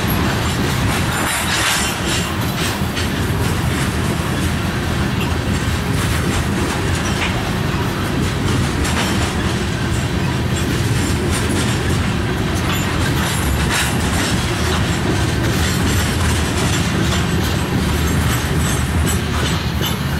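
Loaded covered hopper cars of a grain train rolling past at close range. Wheels on rail make a steady, heavy rumble, with scattered clacks as the wheels cross rail joints.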